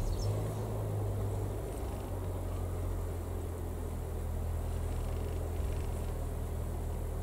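A steady low electric hum switches on at the very start and runs on evenly.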